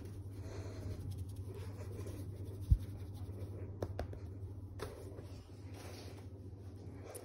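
A hand rubbing and stroking a dog's short coat, a soft scratchy rustling. There is a dull low bump a little before halfway and a few light clicks soon after.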